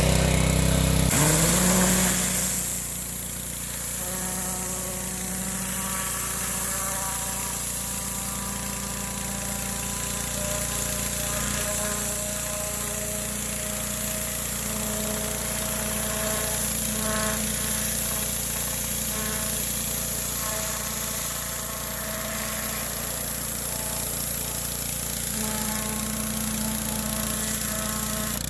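Yamaha-powered 3,100 PSI gas pressure washer running steadily: its engine hums under the high hiss of water spraying from a turbo nozzle. About a second in, the low rumble drops and the engine note rises.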